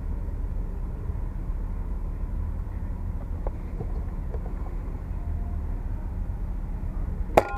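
A steady low background rumble, then near the end a single sharp crack from an air rifle firing at an iguana, with a brief ringing after it.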